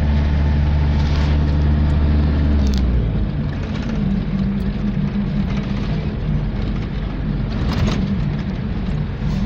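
Engine and road noise of a moving vehicle heard from inside its cab: a steady engine hum whose note changes about three seconds in.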